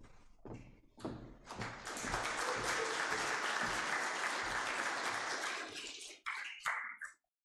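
A congregation applauding. The applause starts about a second in, holds steady for about five seconds, then stops, with a few short sounds just after.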